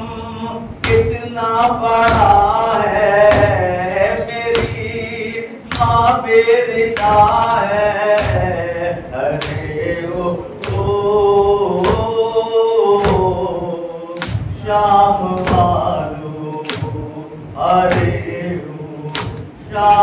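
A man recites an Urdu noha (Shia lament) in a chanting melody, holding long mournful notes. Sharp slaps of matam, hands striking chests, fall in time with it about once a second.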